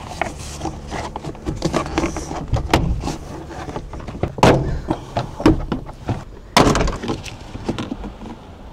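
Plastic retaining clips of a Toyota Sienna sliding-door trim panel popping loose as the panel is pried off with a plastic trim tool: a run of sharp snaps and plastic creaks, the loudest ones in the second half.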